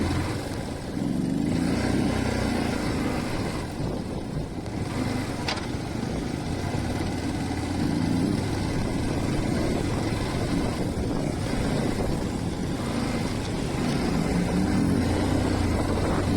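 Motorcycle engine running under way, its note rising and falling with the throttle, with a short click about five and a half seconds in.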